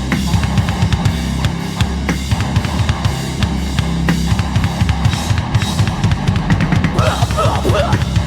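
Hardcore/heavy music section led by a drum kit: rapid bass-drum hits with cymbals and snare over a held low bass or guitar note, without vocals.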